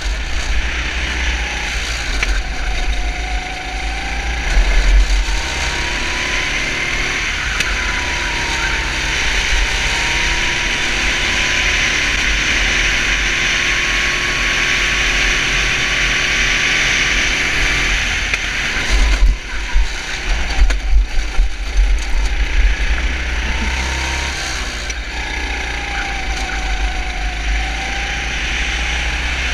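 Four-stroke 250 cc kart engine running at speed, its pitch rising and falling with the throttle. Heavy wind buffets the microphone, gustiest about two-thirds of the way through.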